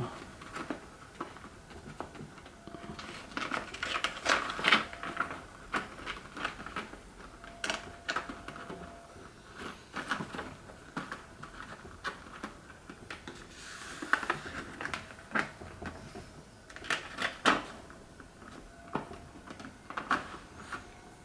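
Irregular clicks, taps and rustles of a cardboard box and its fitted parts being handled and packed back together.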